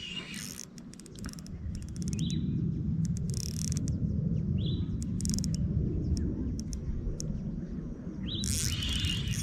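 A bird gives short rising chirps, three times, over a steady low rumble and scattered faint clicks.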